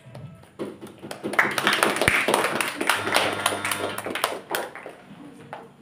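A small group of people clapping, starting about half a second in and dying away after about four seconds.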